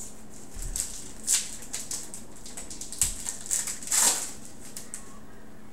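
Crinkling of a clear plastic trading-card wrapper and cards being handled, in a few sharp crackles, the loudest about four seconds in, with a couple of soft thumps on the table.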